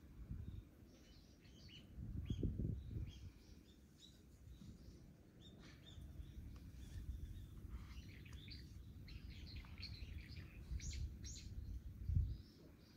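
Small birds chirping and calling over and over, short high chirps scattered throughout. A low rumble rises about two seconds in and again briefly near the end.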